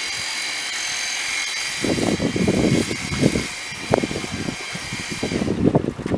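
A steady high-pitched whine of several tones that cuts off suddenly about five seconds in, with wind buffeting the microphone in gusts from about two seconds in.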